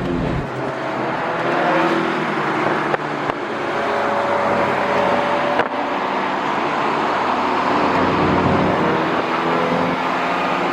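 Car engine running hard at high revs, its pitch drifting slowly up and down, over a steady rush of road and wind noise.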